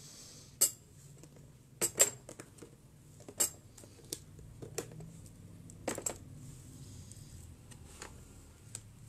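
Light clicks and knocks of small plastic bottles, tubes and a jar being set down on a tray, about a dozen taps with the loudest about two seconds in. A faint low hum runs underneath.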